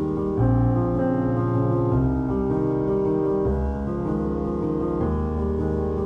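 Background piano music with sustained chords that change every second or so.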